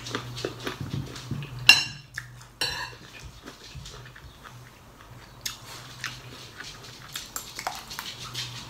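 Close-up chewing of a whole fresh chili pepper, a run of small wet crunching clicks. About a second and a half in come two sharp metal clinks of a spoon against the dish, a second apart, and a faint steady hum runs underneath.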